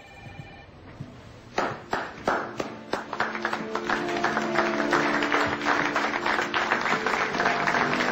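A small group applauding, starting with a few claps about a second and a half in and swelling into steady applause, over music with long held notes. A short electronic ringing tone sounds at the very start.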